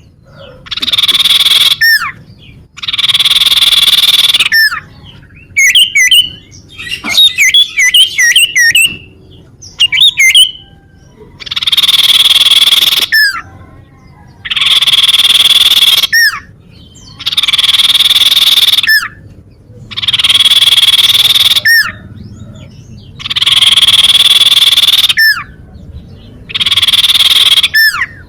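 Recorded calls of a common iora (cipoh, sirtu): a series of long buzzy calls, each ending in a short falling whistle, with a burst of quick twittering chirps between about five and ten seconds in.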